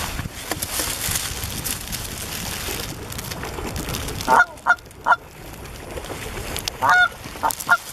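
Rustling and crackling of dry cattail stems, with splashing, fill roughly the first half. After that come short Canada goose honks, several in quick succession, then another group near the end.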